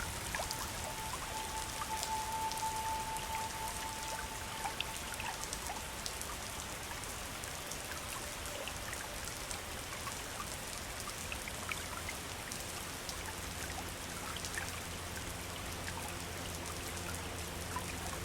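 River water running and splashing steadily, with many small drops and trickles. A soft held tone sounds during the first few seconds, and a low, sustained music chord fades in about two-thirds of the way through.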